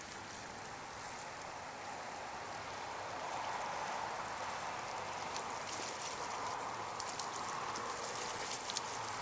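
Steady rushing of water, building slightly about three seconds in, with a few faint ticks over it.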